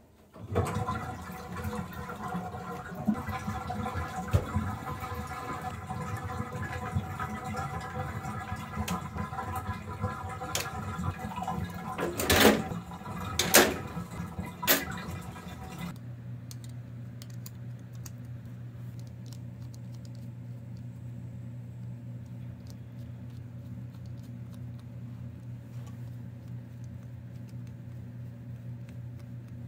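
Water running into a bathtub, with three loud clatters about halfway through. It stops abruptly about halfway through, and a steady low hum follows.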